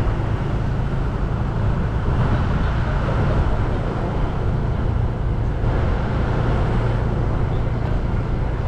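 Steady low rumble of a vehicle driving along city streets: engine and tyre noise with no pauses.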